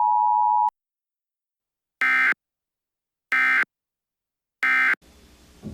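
Emergency Alert System two-tone attention signal, a steady tone near 1 kHz that cuts off under a second in. After a pause come three short, harsh digital data bursts about 1.3 s apart: the SAME end-of-message codes that close an EAS alert. A faint hum comes in near the end.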